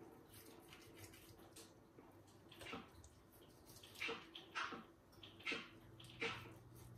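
Kitchen knife cutting pork into cubes on a plastic cutting board: about five short slicing strokes, a second or less apart, starting near three seconds in.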